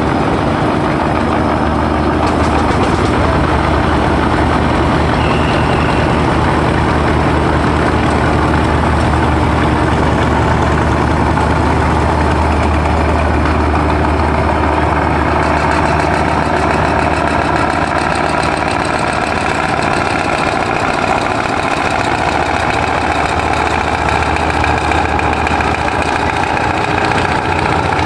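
Weichai marine diesel engine of a passenger river launch running steadily under way as the vessel pulls away from the ghat, a deep, even drone whose note creeps up slightly in the second half.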